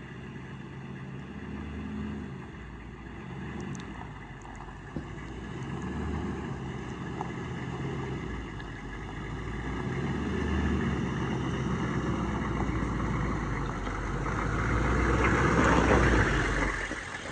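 GMC shuttle bus (converted skoolie) engine running as the bus drives up a dirt track toward the camera, growing steadily louder and loudest as it pulls up close near the end.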